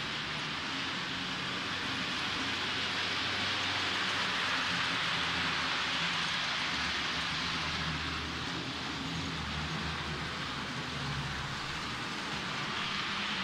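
H0-scale model train running on the layout's track: a steady hiss with a low motor hum that swells in the middle.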